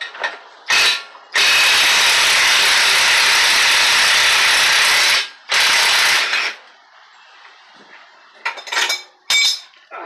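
Impact wrench loosening fasteners during a wheel bearing replacement on a 2009 Toyota Camry. It gives a short burst, then a long rattling run of about four seconds, another run of about a second, and a few short blips near the end.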